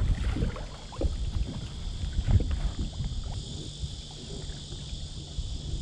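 Small waves slapping and knocking against a plastic fishing kayak's hull in irregular low thumps, the loudest about two seconds in, with wind buffeting the microphone. A steady high insect drone carries on underneath.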